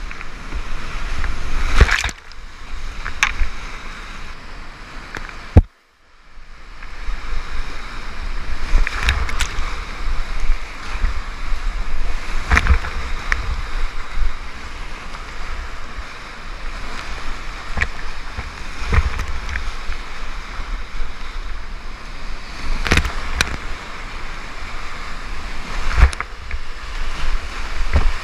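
Heavy whitewater of a steep river rapid rushing and churning close around a kayak. Sharp splashes and knocks of water hit the camera every few seconds. The sound cuts out almost to silence for a moment about six seconds in.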